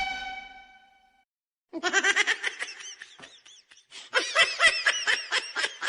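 A held musical tone fades out in the first second. After a short gap, a high-pitched laughing sound effect starts: fast, repeated high giggles that rise and fall.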